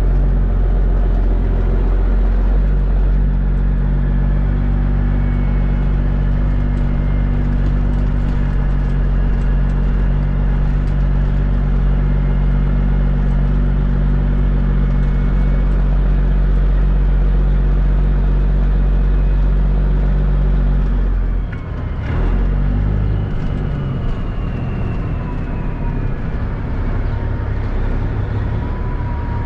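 Semi-truck's diesel engine running steadily under way, with road noise. About two-thirds through, the engine note dips and changes, and a faint high whine falls in pitch.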